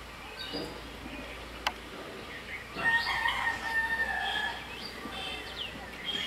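A rooster crowing once, a long held call of about two seconds starting near the middle, with small birds chirping around it and a single sharp click shortly before the crow.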